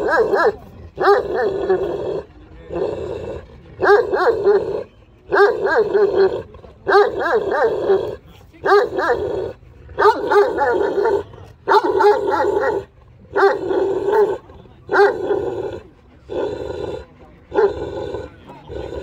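A large dog barking over and over in long, deep barks, about one a second at an even pace.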